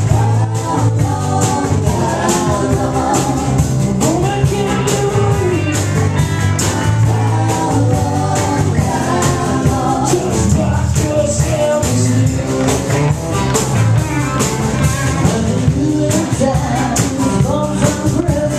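Live rock band playing: singing over electric guitars, a bass guitar and a steady beat with tambourine.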